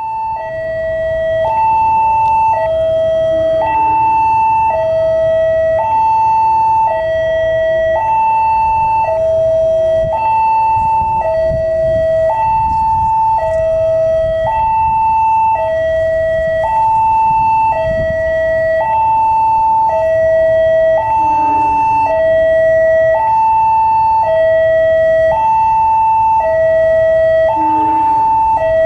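Railway level-crossing warning alarm sounding continuously, an electronic two-tone signal alternating between a high and a low note about once a second. A low rumble runs underneath.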